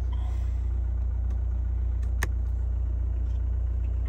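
GWM Cannon's turbo-diesel engine idling steadily, heard from inside the cab as a low, even rumble. One sharp click about two seconds in.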